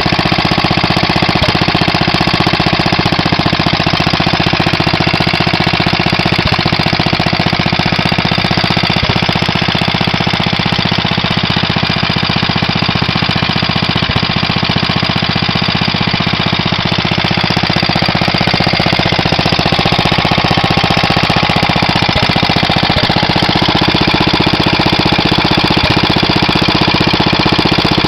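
1939 Stover DVA1 single-cylinder air-cooled engine running steadily with an even, rapid beat. It is running really good, its magneto freshly retimed and its governor sorted.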